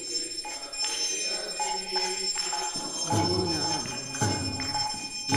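A hand bell rings steadily as a lamp is offered in arati. Voices singing a devotional hymn come in briefly about three seconds in and again near the end.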